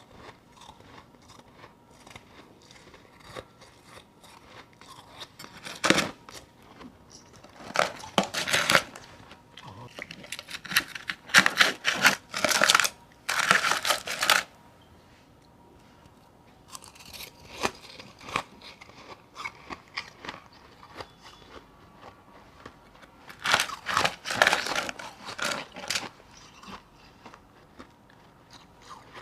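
Chunks of powdery refrozen ice crunching as they are bitten and chewed, in bursts of crisp crackling with quieter pauses between. The bursts are loudest about halfway through.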